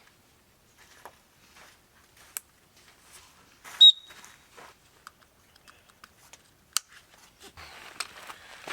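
Scattered soft rustles and clicks of gear being handled, with one sharp, loud click and a brief high ring about four seconds in.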